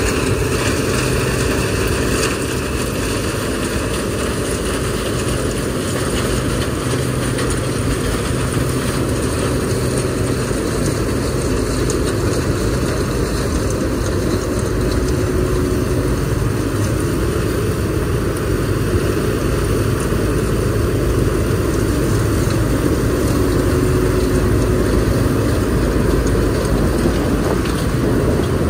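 A CLAAS Mega 204 combine harvester runs steadily under load while harvesting dry corn, its diesel engine and threshing machinery humming continuously. It grows a little louder near the end.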